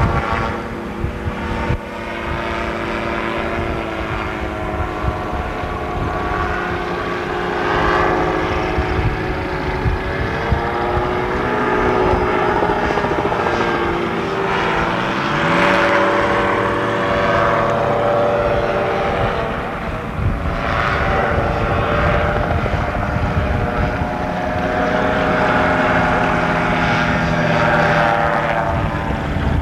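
Air Command gyrocopter's engine and pusher propeller running in flight, a continuous buzzing engine note whose pitch wavers up and down, with a noticeable pitch sweep about halfway through.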